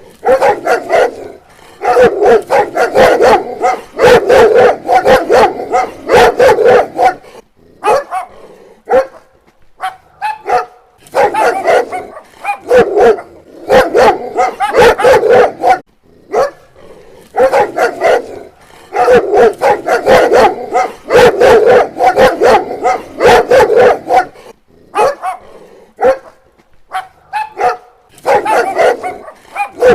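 Dog barking loudly in long runs of rapid barks, broken by short pauses of a second or two.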